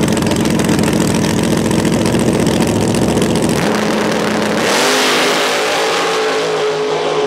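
Top Sportsman drag racing engines, V8s, running with a choppy, lumpy idle. About three and a half seconds in they are brought up to a steady rev. About a second later the pitch jumps higher with a rush of noise as they go to full throttle, typical of a drag launch.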